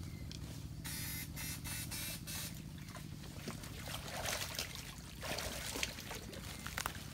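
Water splashing and trickling in a shallow stream with bursts of sloshing about a second in and again around four to six seconds, as a person wades and prods through floating debris. A steady low buzzing hum runs underneath.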